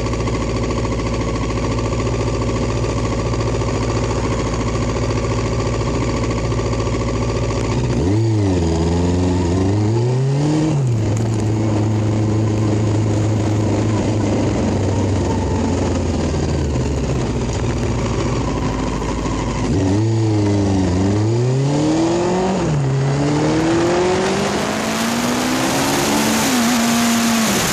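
Motorcycle engine idling steadily while stopped, then pulling away and revving up through the gears: the pitch climbs and drops sharply at each gear change, twice over. Wind noise on the microphone rises as it picks up speed near the end.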